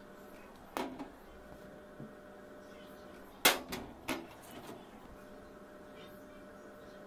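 A few sharp clinks of brass saw screws against a glass dish, the loudest about halfway through, followed by two or three quicker ones. A faint steady hum runs underneath.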